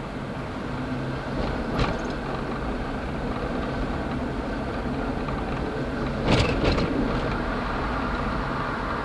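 SEPTA PCC streetcar running along street track, a steady rumble with a low hum heard from inside the car. One sharp knock comes about two seconds in, and a quick cluster of knocks a little past six seconds.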